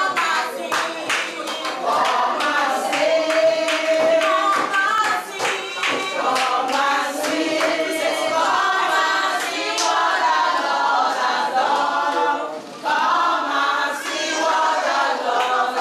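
A church congregation singing a praise song together, with hands clapping along in a steady beat.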